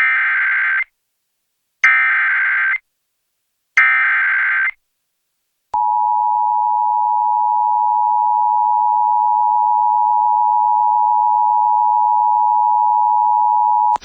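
Emergency Alert System tones: three short bursts of SAME header data, about a second each, then the two-tone EAS attention signal held steady for about eight seconds. Together they open a new severe thunderstorm warning.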